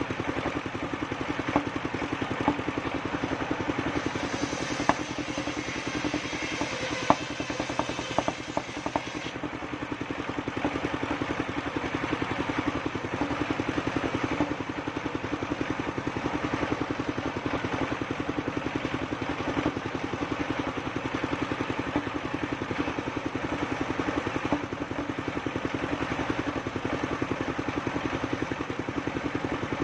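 Engine of a homemade circular sawmill running steadily, with a few sharp knocks and clatter several seconds in.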